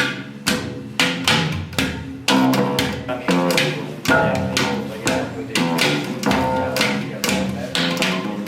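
Music: a steady run of sharply struck or plucked pitched notes, two or three a second, each ringing briefly, with a low bass line beneath.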